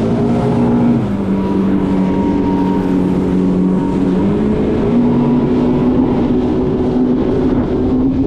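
Yamaha FX HO WaveRunner's four-stroke engine running under way as the ski pulls off, its pitch climbing at first, easing slightly about a second in and rising again about four seconds in.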